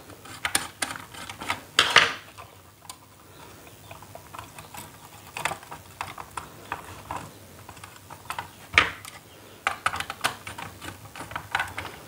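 Irregular small clicks and taps as a wire end is pushed into a switch terminal on a plastic switch board and the brass terminal screw is turned with a screwdriver. The sharpest clicks come about two seconds in and again near nine seconds.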